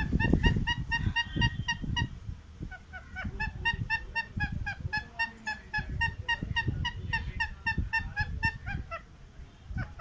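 Rose-ringed parakeet giving a fast run of short squawks, about five a second. The calls break off briefly about two seconds in and again near the end. Beneath them is a low rumble of handling noise and thumps.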